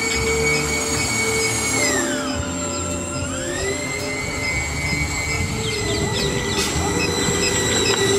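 High-pitched whine of a small electric motor in a model car driving on asphalt. The whine drops in pitch about two seconds in as the car slows and climbs back a second later as it speeds up, over a rough rumble of small tyres on the road.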